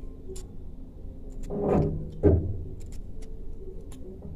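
Peeled potatoes being handled and pricked with a fork over a bowl of water: scattered faint clicks, then a louder scrape and a sharp knock about two seconds in.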